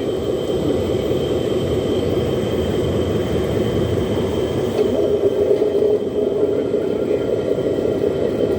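Radio-controlled model truck running with a steady low rumbling whir, growing a little stronger about halfway through.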